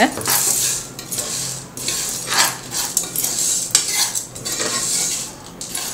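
A metal spoon stirs dried corn kernels in an aluminium pressure cooker, scraping the pot bottom as the kernels rattle round, mixing them with oil, turmeric and salt before popping.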